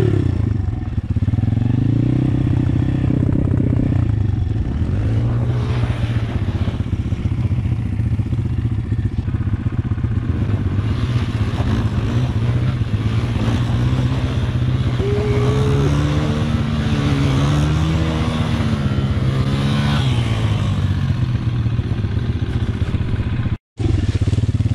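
Apollo RFZ pit bike's small single-cylinder four-stroke engine, fitted with a 150cc swap, running under throttle while riding, its pitch rising and falling as it revs up and eases off. There is a short dropout near the end.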